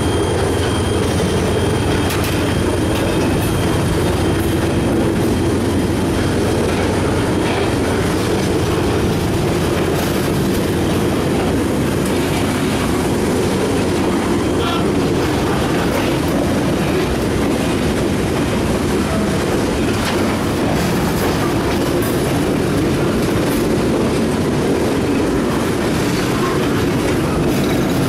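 Freight train of steel open-top hopper cars rolling past close by: a steady rumble of wheels on the rails with occasional clacks.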